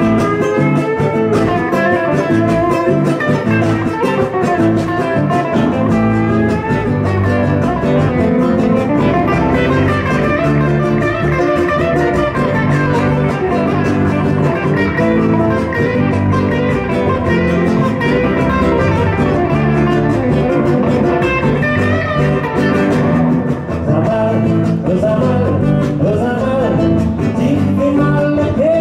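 Live band music on two guitars and a bass guitar, with no drums, heard from behind the PA loudspeakers, which gives a poor-quality sound.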